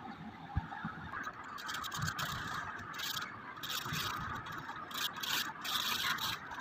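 Pencil lead scratching across paper in short repeated shading strokes, about two a second, starting about a second and a half in.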